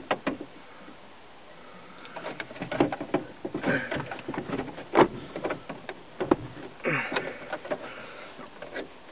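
Plastic overhead console being pressed up against a truck's headliner, its clips being worked into place: irregular plastic clicks, knocks and scraping. The sharpest knock comes about five seconds in.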